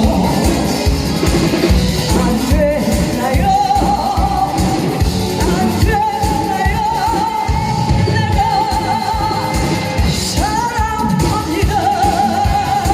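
A singer singing over loud backing music with a steady beat, holding long notes with vibrato.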